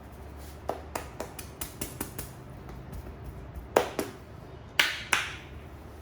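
Sharp hand percussion of an Indian barber's head massage: a quick run of light snapping clicks, then two pairs of louder slaps about four and five seconds in.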